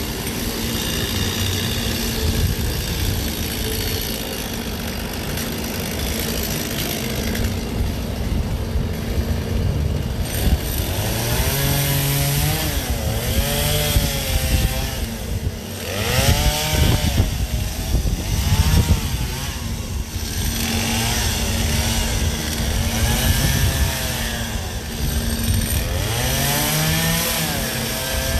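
Gas chainsaw carving ice. The engine runs steadily at first, then revs up and down again and again from about a third of the way in.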